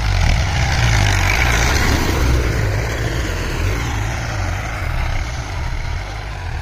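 Diesel tractor engine running steadily under load while pulling a cultivator through the soil. It is loudest in the first couple of seconds, as the tractor passes close, then eases off slightly.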